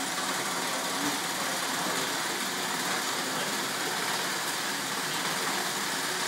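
Steady mechanical running noise of brewhouse machinery, an even hum and hiss with no distinct knocks or changes.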